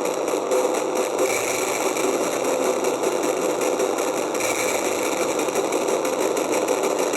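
Homemade piezo contact-mic noise box played through distortion effects: a dense, steady wash of buzzing noise with a fast flutter in the high end, fading out about a second in and returning about four seconds in.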